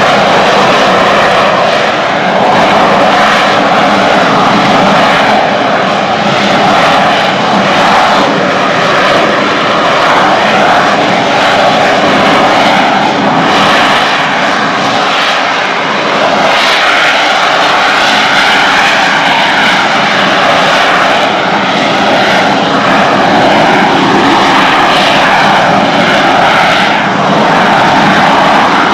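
AV-8B Harrier II's Rolls-Royce Pegasus turbofan running at high power as the jet hovers on vectored thrust: a loud, steady jet noise that wavers slightly in tone and level.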